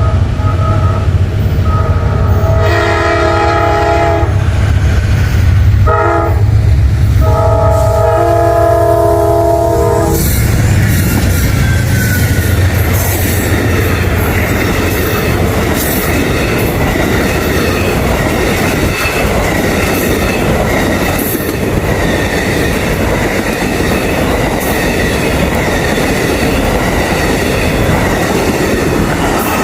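Amtrak GE P42DC diesel locomotive sounding its multi-chime horn over the engine's low rumble: a long blast, a short one, then a longer one, ending about ten seconds in. The train then passes at speed, wheels clattering over rail joints.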